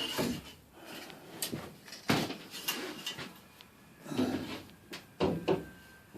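Wooden boat parts being handled and set against each other: a few knocks and scrapes of wood, the loudest about two seconds in and several more in the second half.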